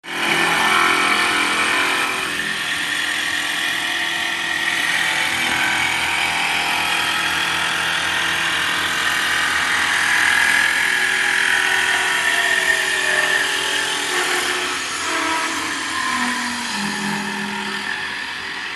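Wood copy lathe shaping a wooden baseball bat: the spinning blank and the traveling cutter make a steady cutting noise with a high machine whine. Near the end the sound eases a little and lower tones slide down.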